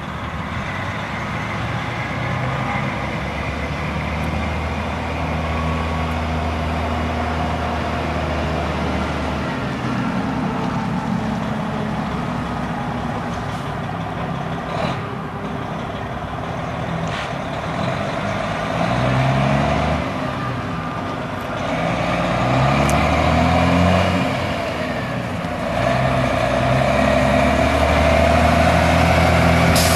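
Detroit Diesel Series 60 12.7-litre inline-six turbo diesel of a 1998 Freightliner FLD semi tractor pulling through the gears. The revs rise and drop several times past the middle, and it grows louder as the truck approaches.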